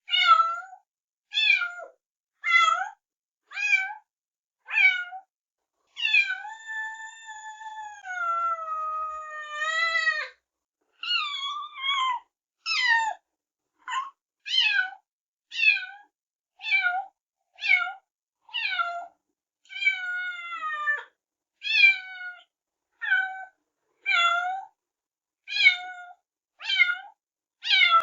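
Kitten meowing over and over in short, high-pitched meows about one a second. One long, drawn-out meow from about six to ten seconds in slides down in pitch.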